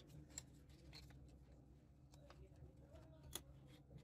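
Near-silent room tone broken by a few faint sharp clicks of a plastic pry card and metal blade against the edge of a phone's back cover, the loudest about three seconds in.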